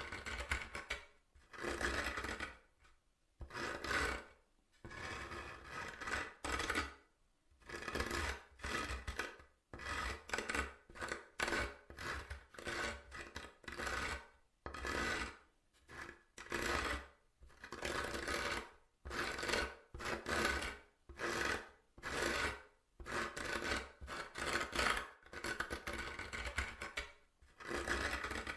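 Fingernails scratching across wood in repeated strokes, about one a second, with short pauses between strokes.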